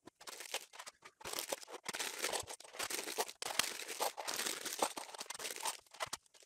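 Thin plastic parts bags crinkling and being torn open, with small plastic clip bricks rattling as they are tipped into bowls: an irregular run of crackles and sharp clicks.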